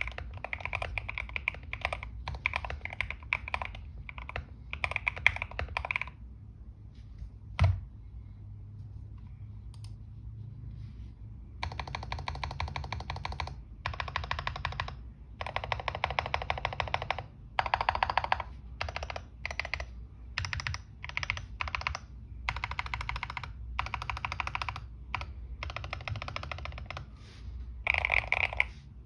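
Typing on a modded GMK67 mechanical keyboard with Gateron Smoothies linear switches, XDA-profile PBT keycaps, case foam and a tape mod: fast runs of keystroke clicks in bursts. A pause of several seconds about a fifth of the way in is broken by a single sharp knock.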